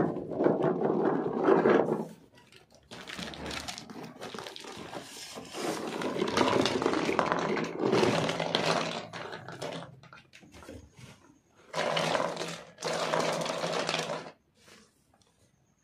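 Small plastic toy animals and toy chairs rattling and clattering as they are shaken out of a cardboard box and pushed about on a table, in several bursts with short pauses between.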